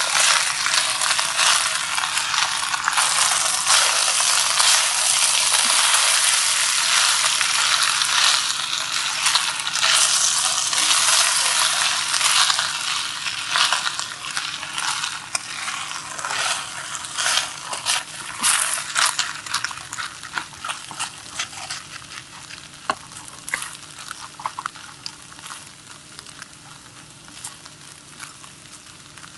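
Poha (flattened rice) frying in ghee in a stainless steel kadai while being stirred with a silicone spatula: a steady sizzle mixed with scrapes and clicks. About halfway through the sizzle dies down, leaving scattered scrapes and taps against the pan.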